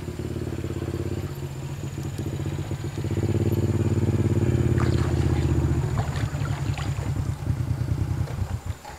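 A small engine running steadily with a fast, even pulse, louder in the middle, then cutting off abruptly near the end.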